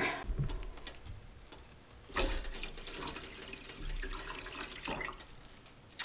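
Water running and splashing as more water is added to a stainless steel pot used as a water bath. It starts about two seconds in and lasts about three seconds.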